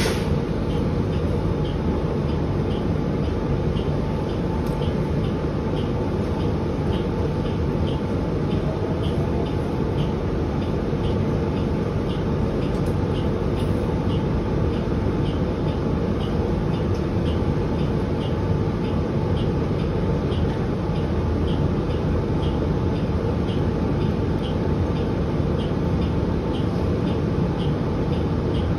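Cabin noise inside a 2023 New Flyer XDE40 diesel-electric hybrid bus: a steady low drone of the drivetrain and road, with a light, even ticking about one and a half times a second.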